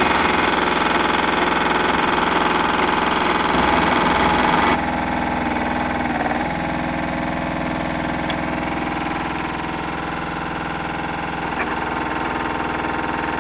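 Portable drill rig's engine and hydraulic drill head running while drilling, the rod turning down into the ground. It is loud and busy for the first five seconds, then drops suddenly to a steadier, quieter run.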